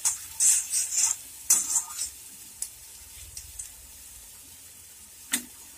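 Chopped onion, garlic, ginger and green chilli frying in mustard oil in a kadhai, stirred with a spatula. There are several quick scrapes of the spatula against the pan in the first two seconds, then a steady light sizzle, and a sharp knock near the end.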